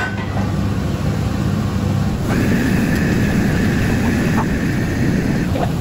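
Steady roar of a commercial wok burner and extractor hood, growing louder about two seconds in with a high steady whistle added, and a light clink of the metal ladle against the wok.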